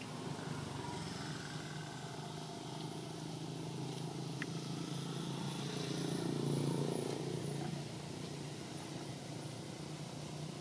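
Steady hum of a motor vehicle's engine, growing louder to a peak about six to seven seconds in and then easing off, as a vehicle passes.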